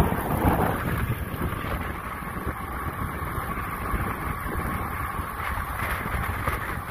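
Wind buffeting the microphone of a camera carried at racing speed in a bunch of cyclists, a steady low rushing noise.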